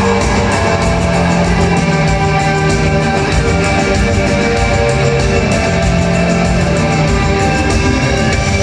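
Live rock band playing an instrumental passage: electric guitar holding long notes over a steady drum beat, with no singing.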